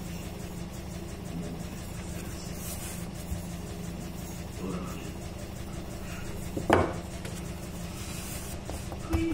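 Wooden rolling pin rolling out shortcrust pastry dough on a countertop, a soft rubbing over a steady low hum, with a sharp knock about seven seconds in.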